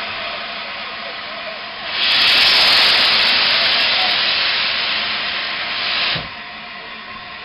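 Peppercorn A1 Pacific steam locomotive venting steam over a steady background hiss. A much louder hiss starts suddenly about two seconds in and cuts off abruptly about four seconds later.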